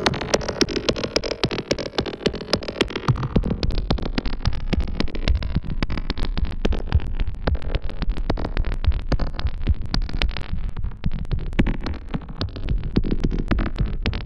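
Pittsburgh Modular System 90 modular synthesizer, voiced through the 9-bit digital DNA Symbiotic Waves oscillator module, playing a rapid stream of clicky, gritty electronic pulses over a deep bass.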